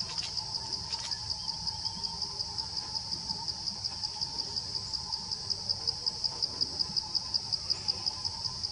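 Insects calling: a steady high-pitched chirring that pulses about five times a second, growing louder about halfway through.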